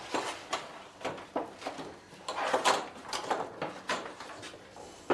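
A run of irregular knocks, clicks and scrapes, loudest a little past the middle.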